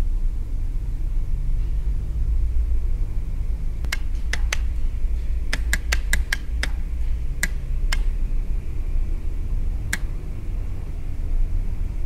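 Electromechanical relays of a light installation clicking as they switch its lamps on and off: about a dozen sharp clicks at irregular spacing, bunched together in the middle and then a last single one, over a steady low rumble.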